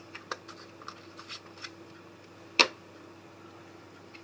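Light clicks and scrapes of a small screw-top paint jar being handled and its lid twisted, with one sharp click about two and a half seconds in.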